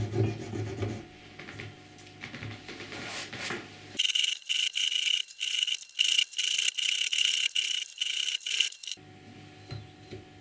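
A small thin hand file rasping across the ridges of a rusty metal drill-chuck shell clamped in a vise. Quiet scraping over a low hum at first, then from about four seconds in a run of loud, sharp back-and-forth strokes, about two a second, for some five seconds.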